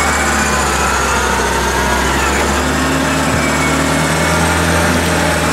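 UAZ-469 off-roader's engine running steadily as the 4x4 crawls through deep mud, its pitch shifting slightly about halfway through.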